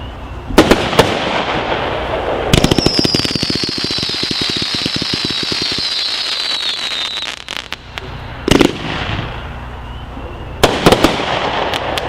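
USA Conqueror firework going off: loud bangs in quick clusters, then a run of rapid crackling with a whistle sliding slowly down in pitch for about four seconds, and more bangs near the end.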